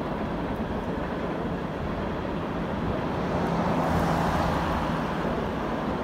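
A pickup truck drives past, its engine and tyre noise swelling about four seconds in and then fading, over a steady background rumble.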